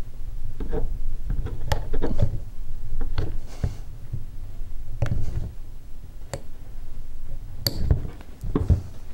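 Flat-blade screwdriver and a round wire circlip clicking, tapping and scraping against a piston as the clip is pried and rolled into its groove, with bumps of hands and the piston on the bench.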